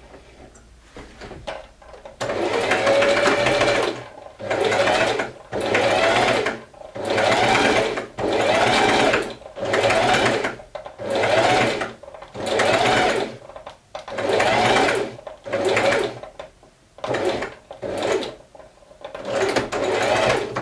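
Electric Singer sewing machine stitching in short runs of about a second each, stopping and starting about a dozen times as darts and seams are sewn.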